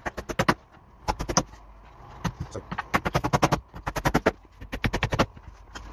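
Hammer nailing wooden formwork boards for a staircase, in about six quick runs of rapid sharp blows with short pauses between.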